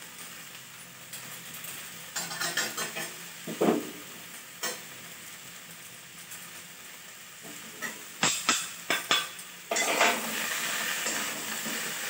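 Ginger scraped on a small metal hand grater over a kadai of soya chunks and potatoes frying in oil, which sizzle steadily underneath. The grating comes as scattered scrapes, then a quick run of strokes about eight seconds in, and the sizzling grows louder about ten seconds in.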